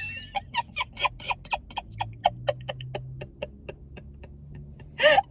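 A woman's quiet, breathy laughter: a long run of short chuckles, about three or four a second, trailing off near the end.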